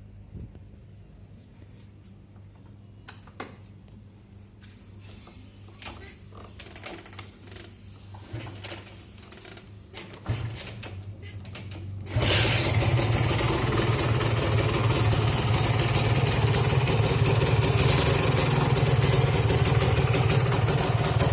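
A few faint clicks and knocks, then about twelve seconds in the Kawasaki Ninja R's two-stroke single-cylinder engine, fitted with a racing exhaust, starts abruptly and runs steadily. This is the test run after its reed valve was cleaned and reset.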